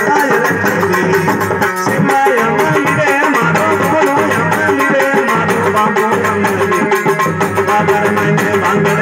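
Live bhajan music: a hand drum keeps a steady beat under held melodic tones from the accompanying instruments.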